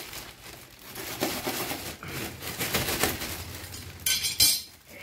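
Plastic wrapping crinkling and rustling as a parcel is pulled open by hand. About four seconds in comes one loud, sharp metallic clatter as a steel dao (machete) is laid down on the tiled floor.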